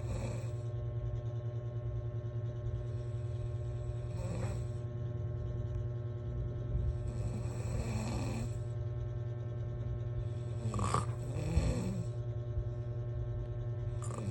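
A person snoring in slow, regular breaths that swell and fade about every three to four seconds, over a steady low hum.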